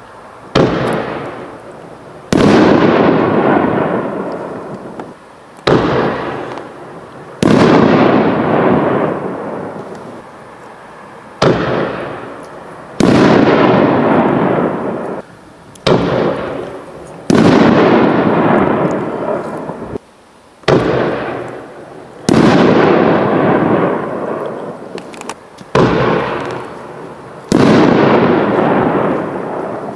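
Six 5-inch Nishiki canister shells fired one after another, roughly every five seconds. Each one gives a sharp launch thump from the mortar tube, then about a second and a half later a loud burst that fades away over several seconds.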